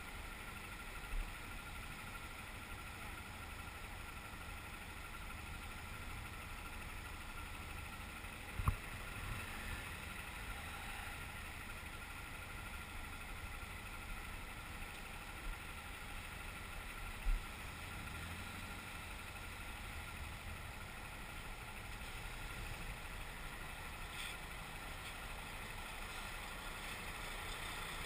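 Motorcycle engine idling under a steady hum of surrounding traffic, with a few brief dull knocks.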